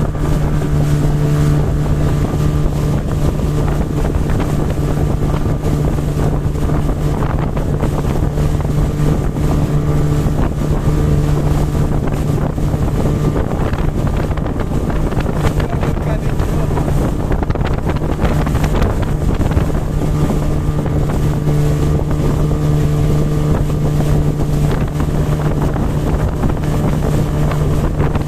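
Motorboat engine running steadily under way, an unbroken low drone with wind rushing across the microphone.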